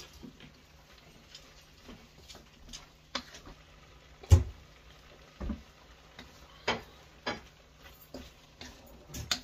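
A spatula clicking and scraping against a hot metal skillet as sliced peppers and steak are stirred, with a faint sizzle underneath. The knocks come at irregular intervals, and the loudest, a low knock, falls about four seconds in.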